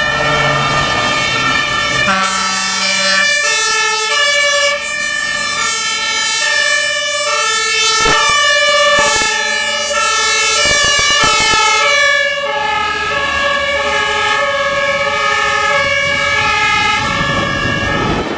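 Two-tone sirens of German fire engines driving on an emergency run, their alternating high and low notes overlapping as more than one sounds at once, over truck engine noise. A short low horn note comes about two seconds in, and the sirens cut off at the very end.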